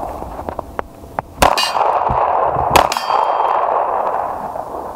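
Two shots from a Beretta pistol, about a second and a half apart, over the steady ringing of struck steel targets.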